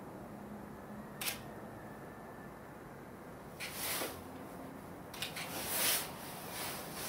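Handling noise from a handheld camera: a short click about a second in, then rustles and scrapes that grow denser and louder in the second half, over a low steady hiss.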